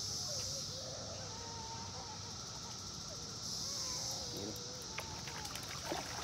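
Insects buzzing in a high, steady drone that swells and fades in waves, with faint whistled bird calls. A few light clicks come near the end.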